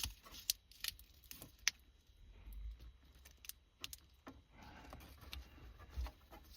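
Scattered light clicks and rattles of the car radio's wiring and ISO connector being handled.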